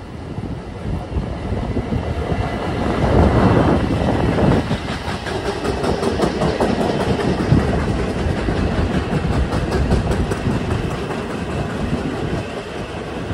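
Long Island Rail Road train running past on the rails, wheels clicking over rail joints; loudest about three to four seconds in.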